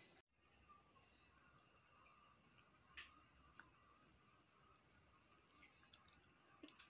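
Night insects chirring: a steady, shrill high trill that starts abruptly a moment in, with a few faint clicks over it.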